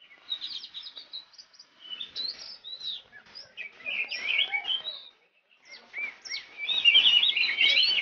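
Oriental magpie-robin (kacer) singing a fast, varied song of chirps and whistles, pausing briefly a little past five seconds in, then resuming denser and louder.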